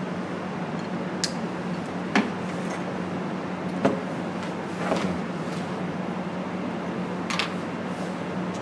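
A few small, sharp clicks and taps from hands handling a cable and jack plug parts at a soldering stand, scattered over a steady low hum and hiss.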